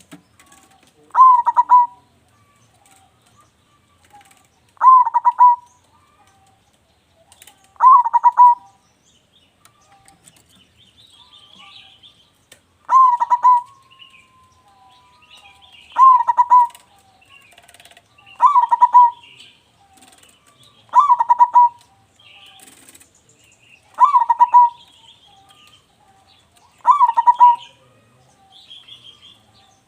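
Zebra dove (perkutut) singing: a short, loud rolling coo of quick notes, repeated about every three seconds, with faint high chirping between the phrases.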